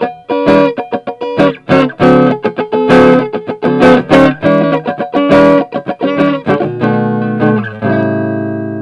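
Electric guitar on its neck pickup, tone and volume full up, played through a Bugera 5-watt tube amp: a quick run of picked notes and chords, ending about eight seconds in on a chord left ringing and slowly fading.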